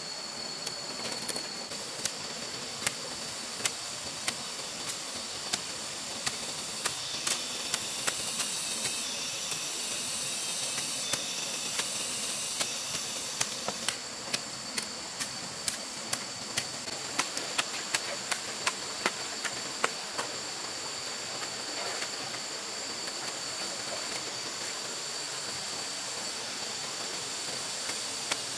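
A hoe chopping into soil as a trench is dug: short, sharp strikes at an uneven pace of roughly one to two a second, over a steady high hiss.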